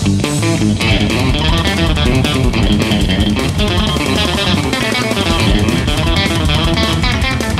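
Fender Elite Stratocaster electric guitar played through an amplified sound, a busy run of quickly changing notes.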